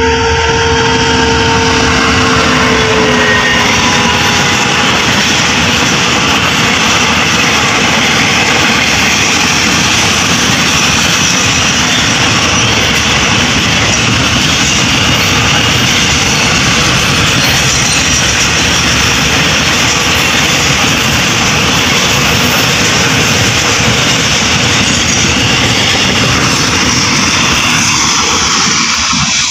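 Diesel-hauled container freight train passing close by. A held note from the locomotive drops slightly in pitch and fades about three seconds in as it goes by, then the steady, loud rumble and clatter of the container wagons rolling over the rails carries on, easing off only at the very end.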